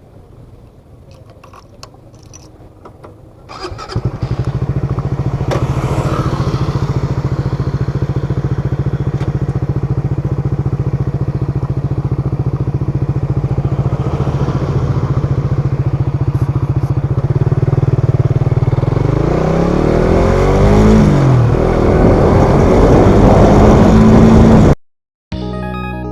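Motorcycle engine starting about four seconds in and idling steadily, then revving with rising and falling pitch and getting louder. It cuts off suddenly just before the end, and music begins.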